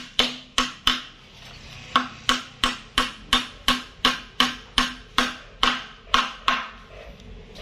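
Hammer blows on a woodworking job in hard timber, about three sharp, ringing strikes a second, with a pause of about a second near the start.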